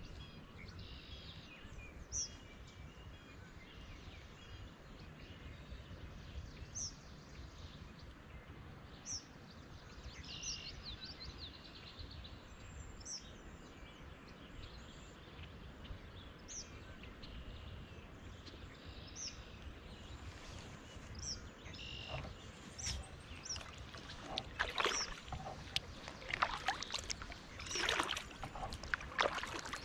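A bird calling in short high chirps every couple of seconds over a steady outdoor background. About two-thirds of the way through, kayak paddle strokes start: water splashing and dripping off the paddle blades, growing louder toward the end.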